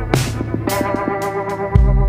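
Electronic background music: sustained synthesizer chords over a deep bass, with sharp percussion hits.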